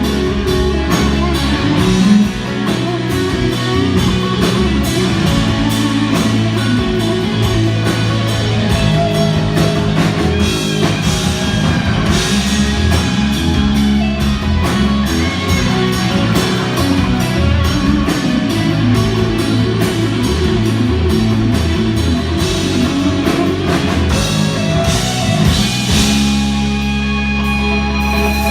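Rock band playing live on electric guitar, bass and drum kit. Near the end the drums drop out, leaving guitar and bass ringing on.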